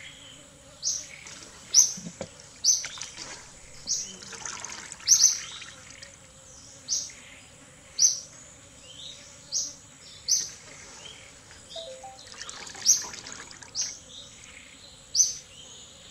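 A bird repeating a short, sharp high chirp about once a second, with soft wet rustling of small raw fish being handled on a metal tray of leaves in two stretches.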